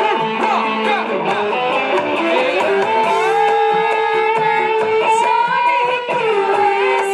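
Loud dance music played over large loudspeaker stacks, with a melody of long held notes that bend in pitch over a steady accompaniment.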